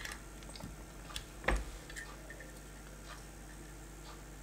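Scattered faint metallic clicks and ticks as a small tool pries at the sheet-metal shielding can of an FM/AM tuner module. The loudest click comes about one and a half seconds in.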